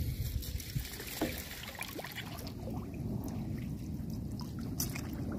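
Lake water sloshing and lapping around a person wading waist-deep while planting a rod-rest stake, with a couple of faint knocks.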